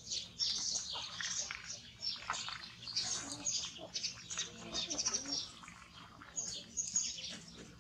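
Small birds chirping, with many short high-pitched calls one after another.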